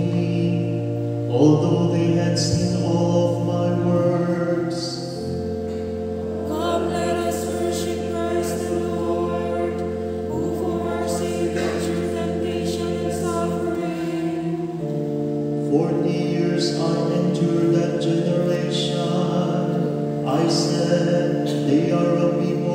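Voices singing a slow liturgical chant, likely a psalm, over held organ-like keyboard chords that change a few times.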